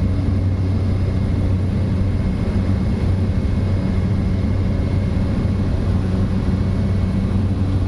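Small propeller airplane's engine and propeller droning steadily in flight, heard from inside the cabin: a constant low hum with a faint high whine.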